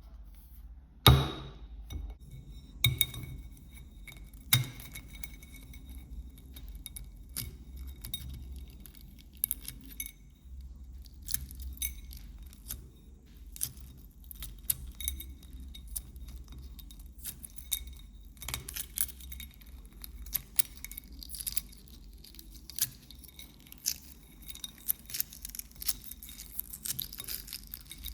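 A hard-boiled white egg knocked against a ceramic plate three times, the first knock the loudest, each leaving the plate ringing briefly. Then a long run of small crackles and clicks as the cracked shell is picked and peeled away, getting busier in the second half.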